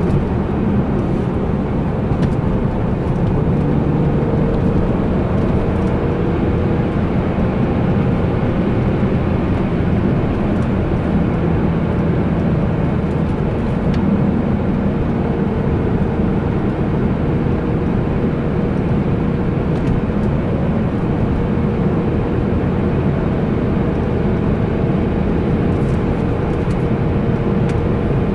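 BMW E46 M3's S54 straight-six engine running steadily at cruising speed, heard inside the cabin together with constant tyre and road noise.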